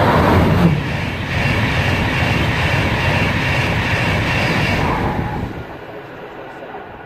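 InterCity 225 electric express train passing at speed directly beneath. Its sound drops in pitch as the leading vehicle goes under about half a second in. Then comes a steady rush and rumble from the coaches, which fades once the tail has passed, about five and a half seconds in.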